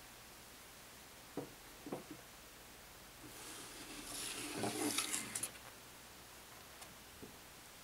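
A couple of light knocks, then a paper picture card sliding out of a wooden kamishibai theatre frame, a rustling scrape that lasts about two seconds.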